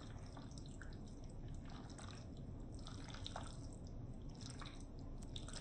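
Spoon stirring and folding chunky avocado salsa in a bowl: irregular wet squelches and small clicks over a steady low background hum.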